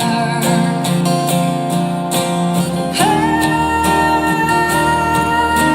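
Live band playing an instrumental passage with strummed guitar over a steady beat. A new held chord comes in about halfway through.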